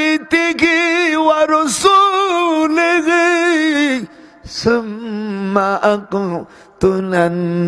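A man's voice chanting in the sung, drawn-out style of a Bangla waz sermon over a microphone, holding long notes with a wavering pitch. After a short break about four and a half seconds in, it comes back on lower notes.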